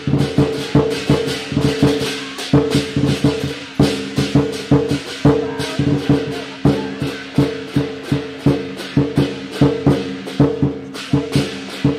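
Chinese lion dance percussion: drum, cymbals and gong played in a fast, steady beat of sharp strikes over a continuous metallic ring.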